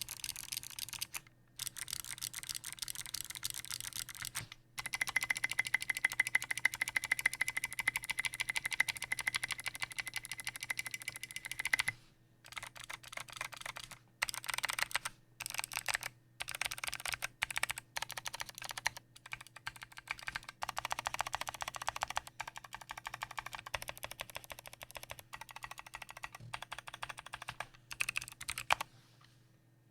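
Fast typing on a custom 60% mechanical keyboard with lubed Kailh Speed Bronze clicky switches, a brass plate and PBT keycaps: dense runs of crisp keystroke clicks with brief pauses every few seconds, stopping shortly before the end.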